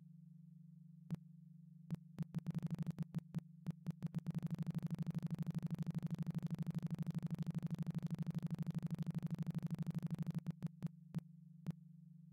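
Electronic soundtrack: a steady low hum with sharp clicks laid over it. The clicks come singly at first, speed up into a fast even run of about ten a second, then slow back down to single clicks near the end.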